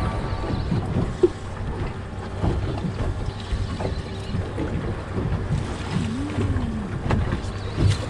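Wind buffeting the microphone and sea water sloshing around the hull of a small boat drifting offshore, with a faint steady low hum underneath.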